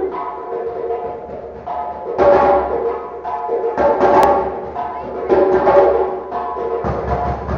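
West African hand drumming on a djembe, with a sustained pitched melodic part held in notes of about a second each over the drum strokes.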